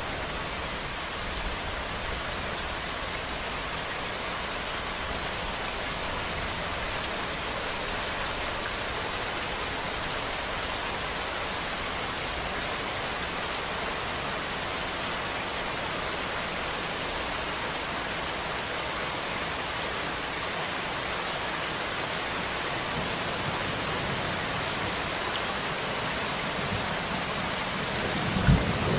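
Steady rain falling on a surface, an even hiss of many drops. Near the end a low rumble starts, with a sudden thump.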